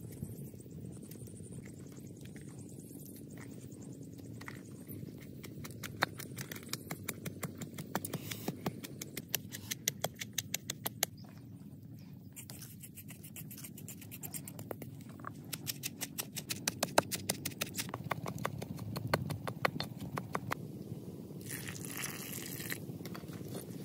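Pestle pounding garlic and red chilies in a wooden mortar: runs of quick, rhythmic knocks with short pauses between them. Near the end, water is poured into the mortar with a brief splashing hiss.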